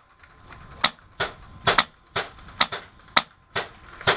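Airsoft rifle firing semi-automatic single shots, about ten sharp clacks at uneven intervals, some in quick pairs.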